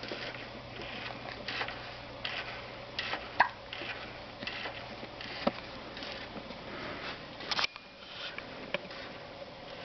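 Repeated soft, breathy hiccups, about one every half to one second.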